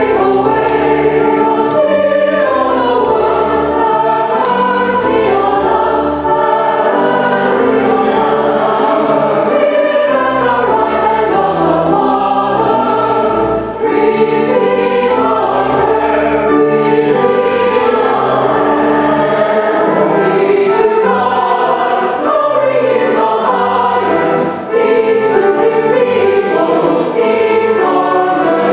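Choir and congregation singing a hymn together over a held low accompaniment, in steady sustained phrases.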